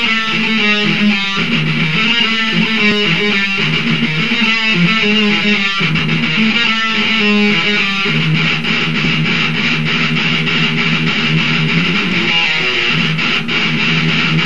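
Rock music led by an electric guitar playing a choppy riff, which turns into steadier strumming about eight seconds in.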